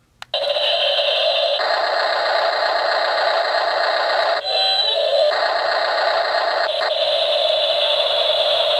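Double E 1:16 remote-control excavator running: a steady, harsh whirring that starts just after a single click and changes briefly a little before halfway.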